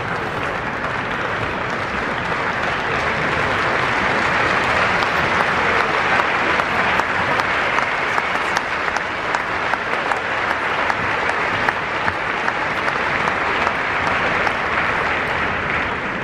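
Arena audience applauding a table tennis rally, a dense patter of many hands clapping that builds a few seconds in and holds.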